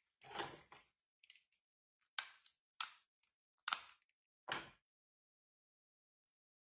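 A small disposable diaper being handled and fastened: about six short, crisp rustles and snaps in the first five seconds, the first the longest, then quiet.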